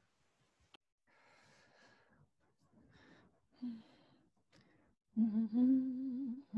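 A woman's quiet breaths and sighs, then from about five seconds in a steady hum with a slowly wavering pitch.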